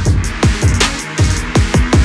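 Electronic background music with a fast, syncopated beat of deep kick drums that drop in pitch, plus crisp percussion hits.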